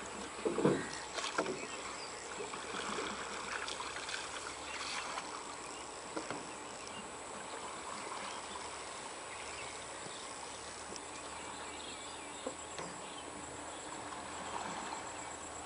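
Lakeside outdoor ambience: a steady hiss with faint high insect chirring, and a few short knocks, the loudest about half a second in.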